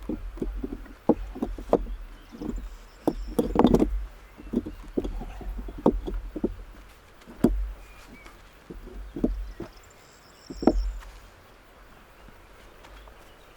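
Stones knocking and clacking against each other as they are set and shifted into a dry stone wall laid without mortar: irregular single knocks, with a few louder clacks around a quarter, half and three quarters of the way in, then quieter near the end.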